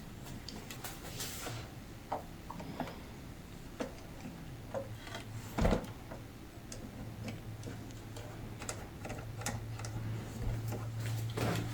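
Scattered light clicks and taps of hand work on the guitar's wooden body during a glue-up, with one louder knock about halfway through. A low steady hum joins about five seconds in.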